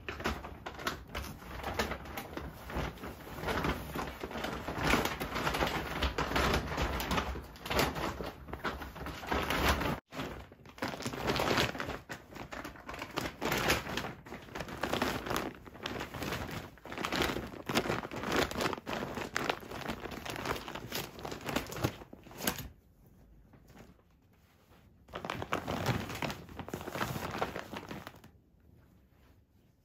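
A thick duvet and bedding rustling and crumpling as they are gathered up, folded and pushed into a laundry bag. The rustling goes on almost without break, eases for a couple of seconds, comes back briefly and dies away near the end.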